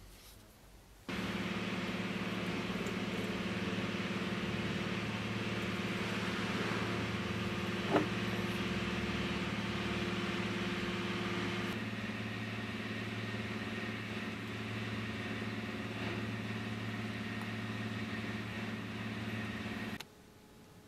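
Steady mechanical hum with an even, unchanging pitch, like a motor or blower running. It starts suddenly about a second in, with a single sharp click about eight seconds in, and cuts off near the end.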